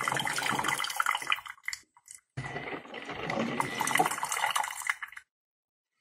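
Beautiful programmable 14-cup drip coffee maker brewing: hot water sputtering and gurgling through the machine, with a faint steady whine, a short break about two seconds in, and an abrupt cut-off a little after five seconds.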